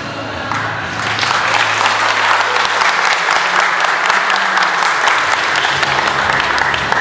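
Applause from a group of people clapping, starting about a second in and continuing steadily.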